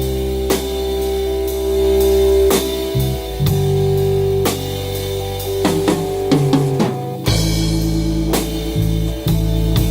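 Band playing rock music: electric guitar over a drum kit with bass drum, with sliding guitar notes about six seconds in and a brief break in the low end just after seven seconds.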